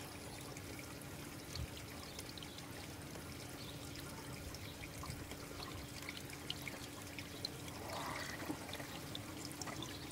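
Water trickling and pouring in an aquaponics flood-and-drain grow bed with a bell siphon, the bed going through its tide cycle. There is a steady low hum underneath, and the splashing grows a little stronger about eight seconds in.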